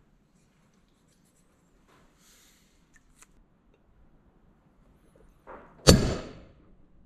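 Hammer striking a centre punch on a steel knife tang to mark the holes for the handle pins: a light tap, then one loud sharp strike near the end with a short ring, after a few faint handling noises.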